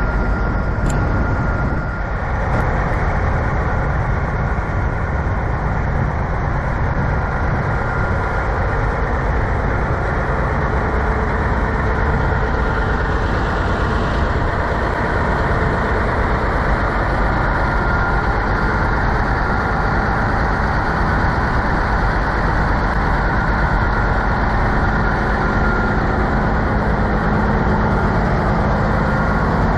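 Steady drone of idling semi-truck diesel engines, with a thin steady whine running through it.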